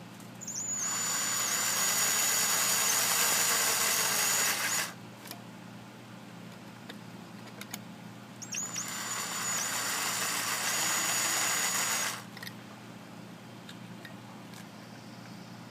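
Small electric drill running in two bursts of about four seconds each, with a high steady whine, drilling holes into the tops of the string trimmer's carburetor adjuster screws.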